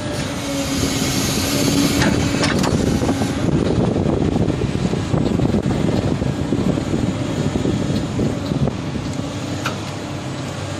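Caterpillar 329D L excavator's diesel engine running under hydraulic load as its rotating crusher attachment closes its jaws and turns in the air. The engine grows louder about a second in and eases back near the end.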